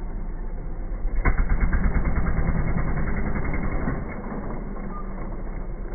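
Beta Evo trials motorcycle engine running, then revved hard about a second in, with a rapid firing beat for a few seconds as the bike is lifted onto a rock, before it drops back to a lower running speed.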